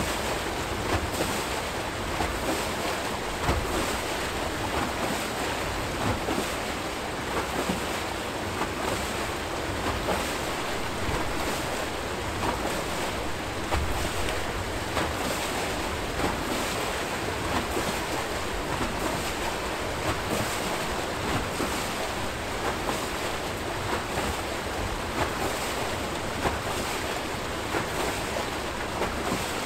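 Water rushing and splashing as it pours out of the bottom of a turning Archimedes screw hydroelectric turbine into the river. A steady rush with small irregular splashes.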